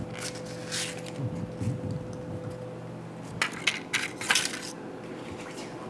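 A few short clinks and rustles of baking things being handled on a kitchen counter, over a low steady hum.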